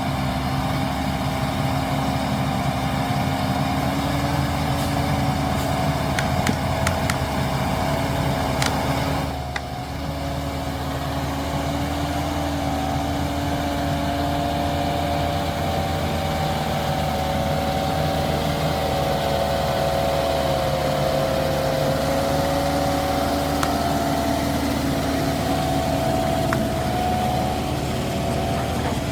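Small motor of a miniature model construction vehicle running steadily with a wavering whine, dipping briefly about ten seconds in.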